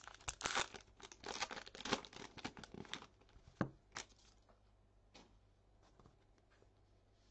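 The plastic wrapper of a baseball trading-card pack being torn open and crinkled for about three seconds, followed by a few sharp taps as the pack is handled.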